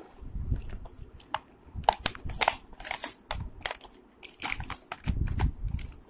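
Crinkly plastic packaging crackling in bursts as hands grip and open it, with a few dull handling bumps.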